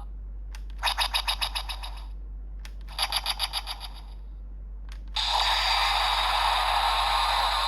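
Electronic sound effects from a Bandai DX Ultraman Trigger GUTS Sparklence toy's speaker: a plastic click, then a short, rapidly pulsing electronic chime, repeated after another click, then a further click and a loud, sustained sound effect that starts a little past five seconds in.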